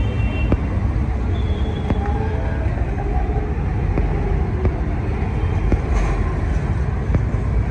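Busy roadside street noise: a steady low rumble of traffic with faint voices and a few light clicks.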